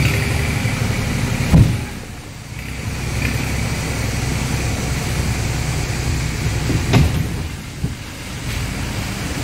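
A 4x4 off-road jeep's engine running as it drives through mud and water on a forest track, with a steady low rumble that dips briefly twice. Two sharp thumps stand out, about a second and a half in and again about seven seconds in.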